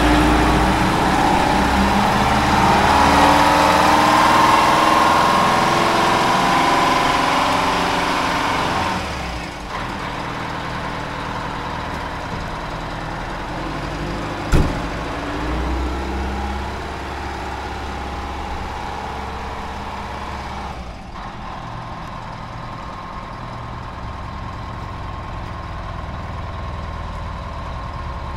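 M1070 8x8 heavy equipment transporter's diesel engine pulling the truck away, its pitch rising over the first several seconds. The sound drops off suddenly about nine seconds in and again near twenty-one seconds as the truck moves off. A single sharp pop comes about halfway through.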